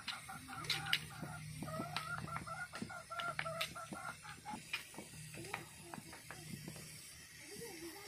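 Stone pestle knocking and grinding roasted tomatoes in a wooden mortar, with a metal spoon clinking against the pestle and the mortar's rim: a run of irregular sharp clicks and knocks. A wavering call sounds in the background from about two to four seconds in.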